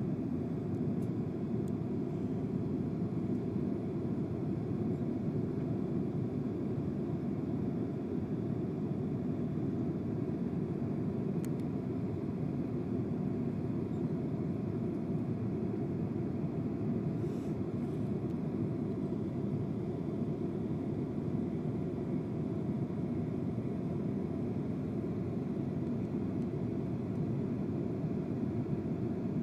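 Steady low rushing noise inside a jet airliner's cabin, the engines and airflow running without change.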